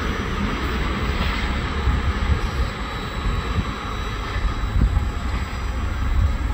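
Train running through the station: a steady, even rumble.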